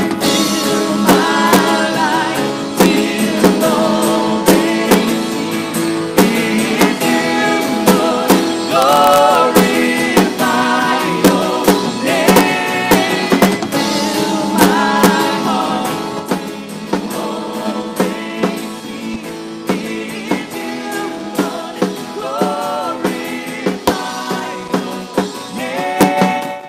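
Live worship band playing: acoustic guitar and keyboard with a steady beat, and several voices singing the melody. It gets softer in the second half and drops away at the very end.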